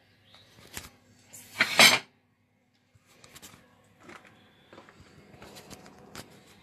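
Handling noise from a phone being moved and set down: a click, then a loud rubbing scrape against the microphone lasting about half a second. The audio drops out for about a second, and scattered small knocks and clicks follow.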